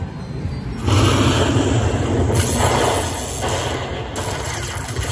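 Slot machine's win-tally sound effect as the credits count up: a loud, noisy rush with a low rumble, rising about a second in, with no tune.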